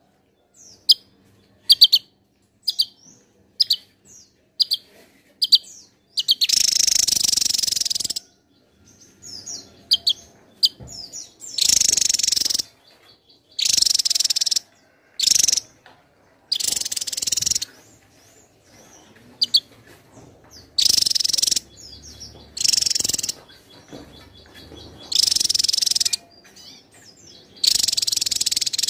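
Javan tesia singing: first a run of short, sharp high whistled notes, then loud, dense, high-pitched song phrases of a second or two each, repeated every few seconds.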